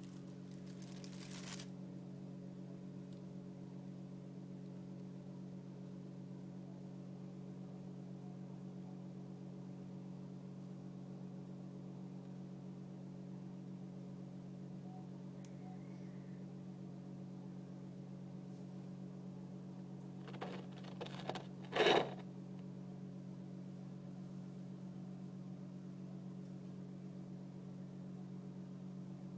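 A steady low electrical-sounding hum, made of several fixed tones. About twenty seconds in come a few quick taps and then one louder knock.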